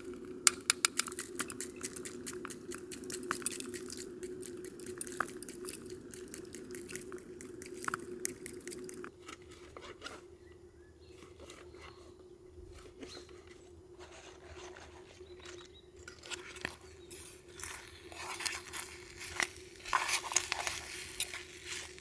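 A run of small sharp clicks and crunches with some crinkling, busiest in the first half, with a few louder rustling bursts near the end.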